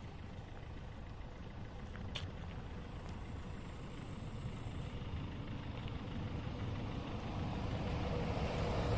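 A motor running with a faint steady tone, growing slowly and steadily louder as if drawing nearer.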